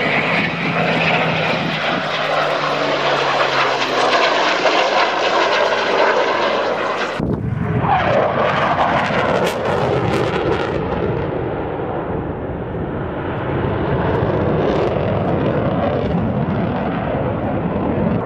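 Eurofighter Typhoon and Spitfire flying past together: jet roar with a lower, steady engine drone beneath it. About seven seconds in the sound changes abruptly to a Typhoon alone, its twin-engine jet roar sweeping down in pitch as it passes, then running on steadily.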